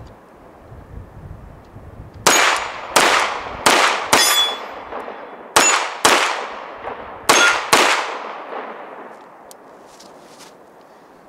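CZ 75 SP-01 Shadow pistol fired eight times in four quick pairs (double taps), each shot ringing out and echoing.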